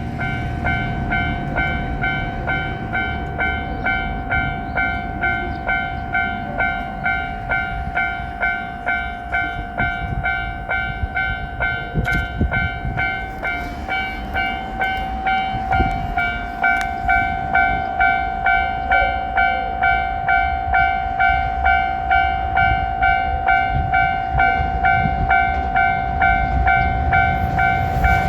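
Japanese railroad crossing alarm ringing its repeated "kan-kan" strokes, a little under two a second, with a steady ringing tone beneath. Near the end the noise of the approaching 2700-series diesel train starts to rise under the alarm.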